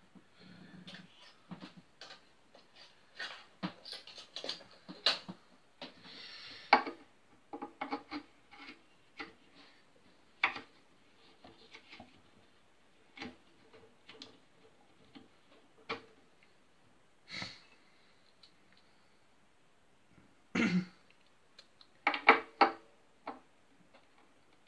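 Irregular clicks, taps and knocks of small tools and parts being handled at a guitar repair bench, with a few louder knocks spread through.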